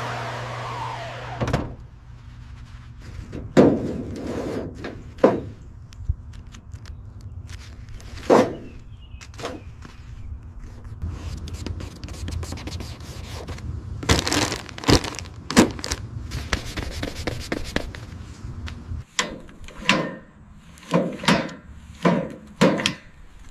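A machine whine winds down and cuts off about a second and a half in. Then comes a run of irregular knocks and thuds, several in quick succession near the end.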